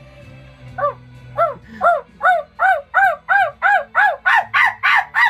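A young woman imitating a dog: a run of about a dozen high-pitched yipping barks in her voice, each rising and falling in pitch, coming faster and faster.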